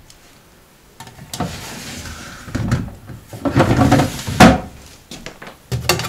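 Clear plastic freezer drawers of a Bosch fridge-freezer being slid and handled, with scraping and several sharp plastic knocks, the loudest about four and a half seconds in.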